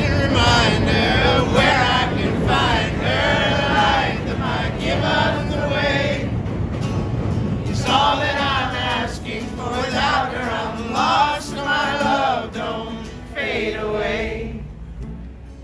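Acoustic guitar strummed under a man's lead vocal, with a crowd of voices singing along; the singing stops about a second before the end.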